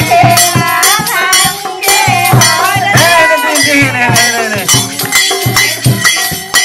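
Bhojpuri wedding folk song for a haldi ceremony: a voice singing a wavering melody over a steady drum beat and a jingling rattle.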